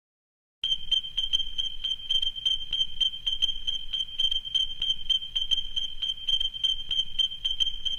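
Rapid, evenly spaced high-pitched electronic beeping like an alarm, starting abruptly just under a second in after silence.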